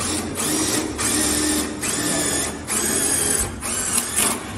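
Cordless drill/driver motor whirring in about four runs of roughly a second each, with short pauses, then a few shorter bursts near the end, as it works at a metal door frame.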